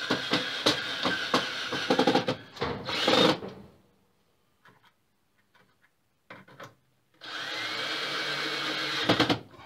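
Cordless drill driving screws into a wooden mounting board: one run of about three seconds, a pause with a few small clicks, then a second run of about two seconds near the end whose motor whine rises in pitch as it spins up.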